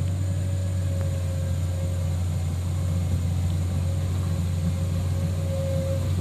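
Komatsu crawler excavator's diesel engine running hard under load as the machine tracks through thick mud, a steady low drone with a steady high whine held over it.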